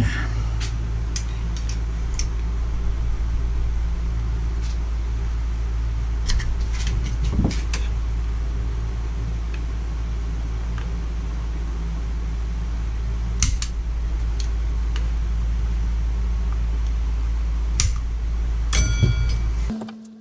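A screwdriver and pick clicking and scraping against the steel gland of a mini-excavator's hydraulic ram as the old seals are picked out of it: scattered sharp metallic clicks over a steady low hum, with a brief high squeak near the end. The hum cuts off suddenly just before the end.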